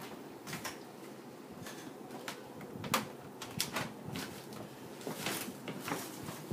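Irregular light knocks, taps and scuffs, the sharpest knock about three seconds in, from kittens playing among household things and the phone being handled.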